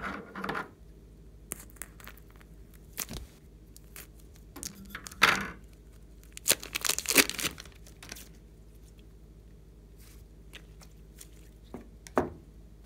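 Thin plastic piping bag crinkling and tearing as it is squeezed and peeled off a lump of slime, in several short bursts with scattered clicks between, the longest bursts about halfway through.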